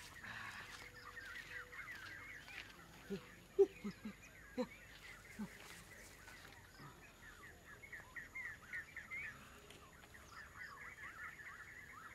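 Birds chirping in quick repeated series. A few short, louder low calls from an unseen animal come about three to five seconds in.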